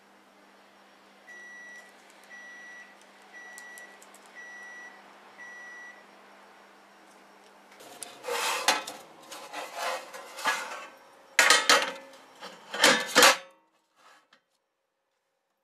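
Kitchen oven beeping five times, short even beeps about a second apart. Then a metal baking tray scrapes and clatters loudly as it goes onto the oven rack, ending with a heavier knock.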